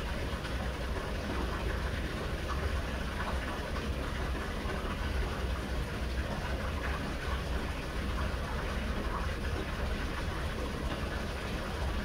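A stream of water pouring onto a small wooden water wheel in a rock fountain, splashing steadily, over a constant low rumble.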